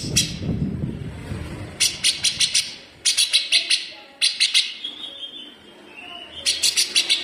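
Cucak jenggot (grey-cheeked bulbul) giving its harsh, sharp rapid-fire 'besetan' song: about four quick runs of four to six clipped notes each, with short pauses between. A low background rumble fades out in the first second or two.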